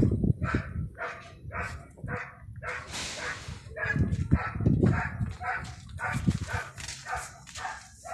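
A dog barking over and over, about two to three barks a second, with a low rumble swelling at times beneath it.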